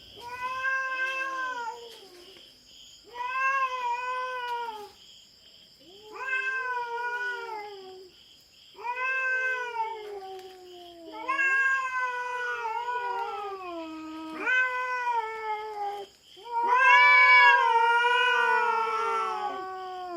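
Feral cat yowling: long, drawn-out caterwauls, each rising and then sliding down in pitch, repeated about every two to three seconds, the loudest and longest near the end. Territorial yowling from a cat intruding on other cats' ground.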